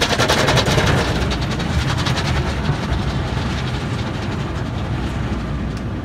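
Automatic car wash working on the car, heard from inside the cabin: a rapid, even drumming on the body fades about a second in, leaving a steady rushing rumble.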